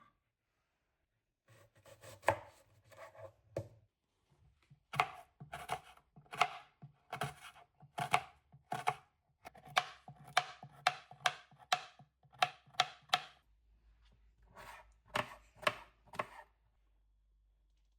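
Knife chopping food on a cutting board: a run of sharp strokes, roughly two a second, pausing briefly twice.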